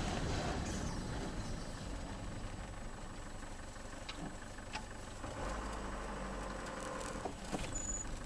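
Car engine and road noise heard from inside the cabin, low and steady, with a few faint clicks.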